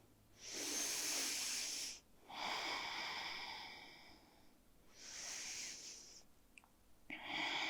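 A person breathing slowly and audibly, with four long breaths in and out, each lasting one to two seconds.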